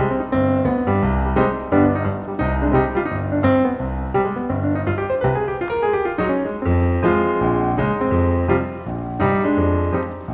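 Background music: piano or electric piano playing with a steady bass line.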